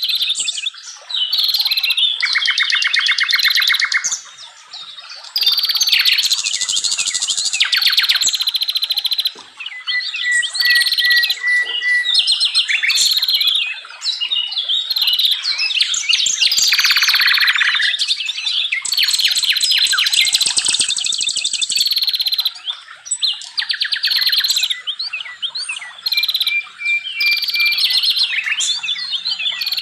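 Wild songbirds singing a dense, almost unbroken stream of varied chirps, short whistled phrases and rapid trills.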